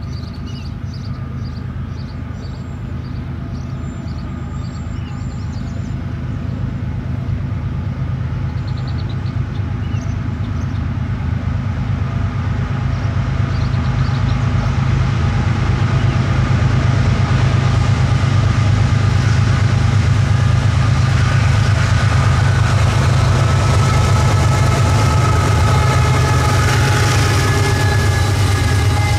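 Two CSX GE Evolution-series diesel locomotives approaching and passing at the head of a freight train of hoppers and tank cars. The engine rumble grows louder through the first half and holds loud as the lead unit passes near the end, with steady higher tones over it in the second half.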